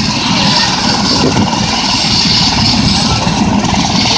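Eurocopter EC130 air ambulance helicopter running on the ground with its main rotor turning: steady turbine whine over a fast, even rotor pulse, ahead of lift-off.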